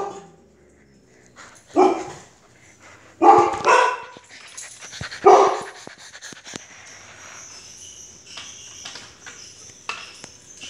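A dog barking in alarm at a person in a scary mask: about five loud single barks in the first six seconds, two of them close together, then only faint clicks and rustling.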